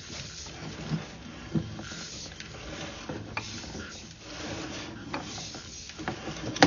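Sewer inspection camera's push cable being pulled back out of the line and reeled in: a steady mechanical scraping and rattle with a few sharp knocks, the loudest near the end.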